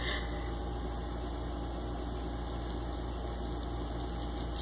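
A steady low hum with a faint hiss over it, even and unchanging.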